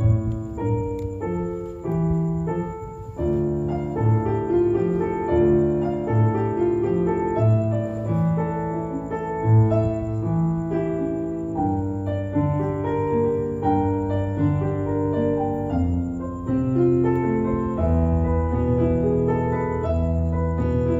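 Solo piano sound from a digital stage keyboard playing a song's introduction, melody and chords with notes ringing into one another.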